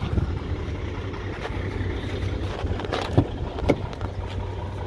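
Steady low rumble of a heavy diesel truck engine idling. A few sharp clicks and knocks come about three seconds in, as the truck's cab door is opened.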